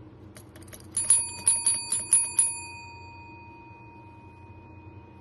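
A chrome desk service bell is struck rapidly by a cat's paw, about seven dings in a second and a half starting about a second in, after a few faint clicks of the plunger. The last ring hangs on and fades away.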